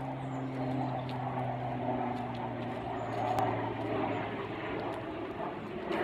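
A distant engine drones steadily, its pitch slowly falling, with faint footsteps on the trail.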